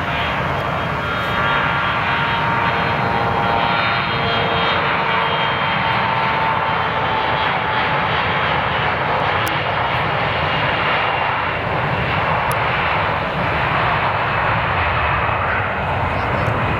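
Bombardier CRJ-900 regional jet's two rear-mounted GE CF34 turbofans running steadily at takeoff power, a loud, continuous jet roar. A faint high whine sits in it for the first few seconds.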